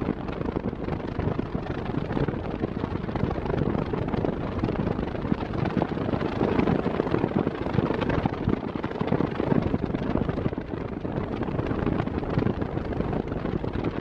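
40 cm Arno electric fan running at maximum speed, heard from right at its grille. The airflow makes a steady rushing noise with a low rumble.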